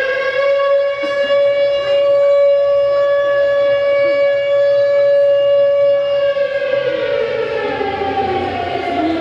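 Recorded air-raid siren played over the hall's sound system: one long wail that holds a steady pitch for about six seconds, then winds down, falling in pitch over the last few seconds.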